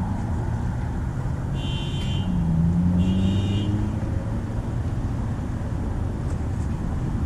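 Street traffic: cars passing with their engines running and the pitch slowly rising and falling. Two short high-pitched tones sound about two and three seconds in.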